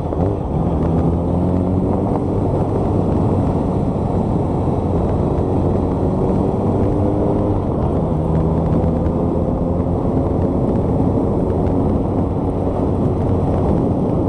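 Motorcycle engine pulling under way with wind rushing over the microphone; its pitch climbs slowly, drops about eight seconds in at a gear change, then climbs again.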